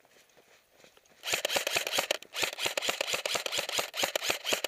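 Airsoft electric rifle firing on full auto in two bursts, a short one about a second in and a longer one after a brief pause, each a fast, even run of sharp mechanical clicks.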